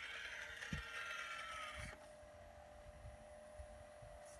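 Hydraulic pump of a radio-controlled CAT 336 excavator whining under load as the machine swings and lowers its boom, cutting off abruptly about two seconds in and dropping to a lower steady hum. A low thud comes under a second in.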